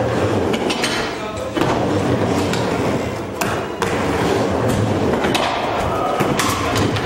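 Busy indoor skatepark din: wheels rolling on wooden ramps, with scattered knocks and clacks of boards and scooters hitting the ramps.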